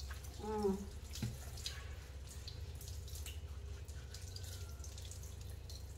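Kitchen faucet running onto a puppy being washed in a sink, with splashing and dripping as the wet fur is scrubbed. A woman's voice sounds briefly about half a second in.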